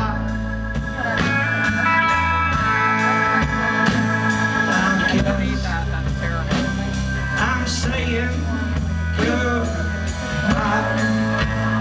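Rock band playing live, with electric guitars, a drum kit keeping a steady cymbal beat of about three strikes a second, and singing.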